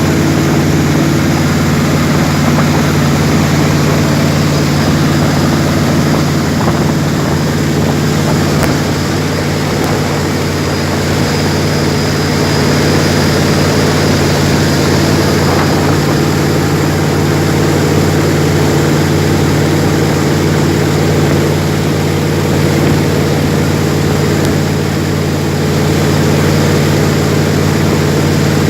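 Jet boat engine running at a steady, constant pitch, with a steady rushing noise over it.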